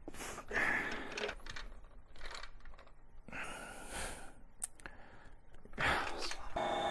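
Irregular clicking and scraping as a screwdriver and a metal opener pry at a plastic belt-retention clip on an HP Designjet printer carriage, with breathy exhales of effort between the clicks.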